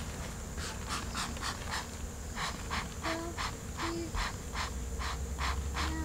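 Bee smoker's bellows being pumped to puff smoke at a honey bee swarm: a run of short breathy puffs, about three a second, with a brief pause about two seconds in.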